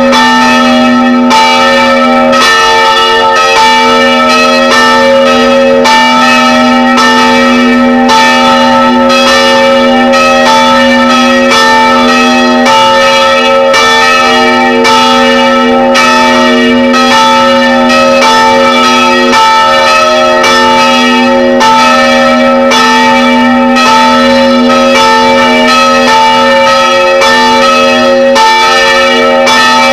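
Three church bells (about 250 kg, 110 kg and 55 kg) swinging and pealing together, their strikes overlapping in a continuous clangour with long ringing tones. Very loud, heard up close inside the belfry.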